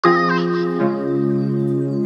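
Background music of held chords, starting at once and moving to a new chord just under a second in.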